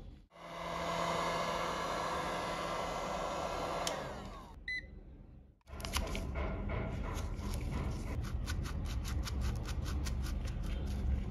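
A steady whirring, blower-like noise that winds down about four seconds in, followed by a short beep. After that, a plastic opening pick works along the adhesive edge of a phone's back glass, with a fast run of small scraping clicks near the end.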